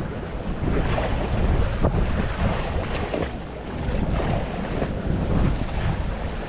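Strong wind buffeting the microphone in uneven gusts, a low heavy rush of noise.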